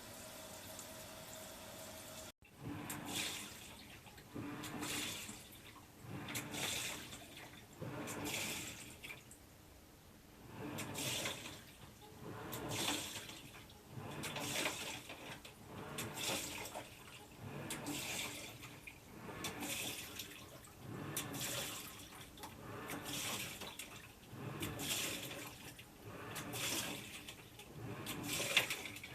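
Panasonic NA-FA10K1 top-loading washing machine washing: water sloshing in rhythmic surges, about one every two seconds, as the drum's pulsator turns back and forth. It opens with a steady faint hum that cuts off suddenly about two seconds in.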